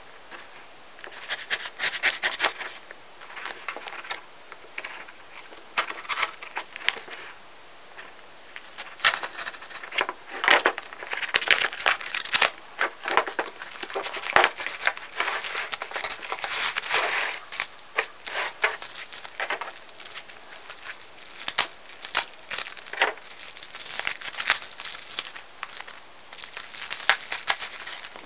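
A cardboard shipping box being torn open and its packing rustled and crumpled by hand: irregular tearing, crinkling and crackling in short bursts.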